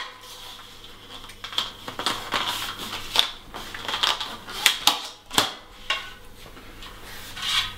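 Rim tape being stretched and worked onto a bicycle rim by hand: irregular clicks, taps and rubbing as the tape and a screwdriver set through the valve hole knock and slide against the rim, with a few sharper clicks spread through.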